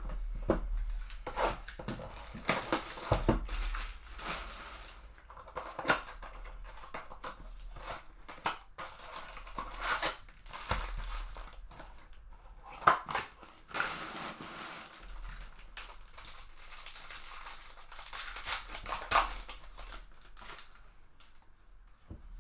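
A sealed trading-card blaster box being opened by hand: plastic wrap and foil packs crinkling and tearing, with cardboard flaps ripping and sharp clicks and knocks, in irregular bursts.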